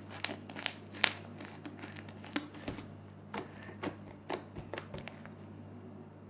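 Glue-and-borax slime being squeezed and kneaded by hand, giving off irregular small clicks and pops that thin out about five seconds in.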